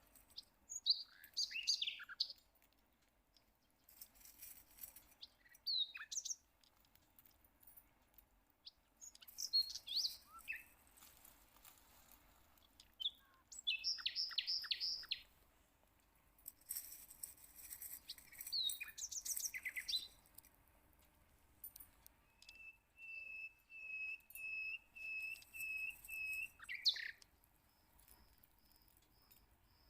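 Songbirds chirping and calling, including short trills and a run of about nine evenly spaced notes at one pitch near the end. Several bursts of faint high hiss come and go between the calls.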